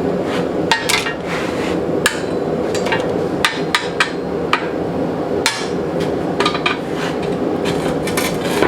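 Hammer blows on hot 1/4 by 1 inch steel flat bar, bending it to a curve: a series of about fifteen sharp, irregularly spaced strikes over a steady low hum.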